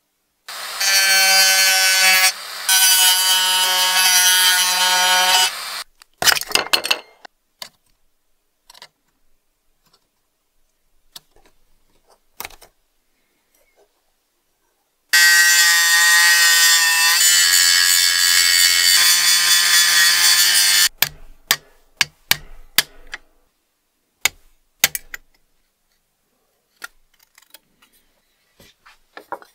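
High-speed rotary tool running at a steady, high whine twice, about five to six seconds each, with a brief break in the first run. In between come small clicks and taps of sheet-metal lantern parts being handled.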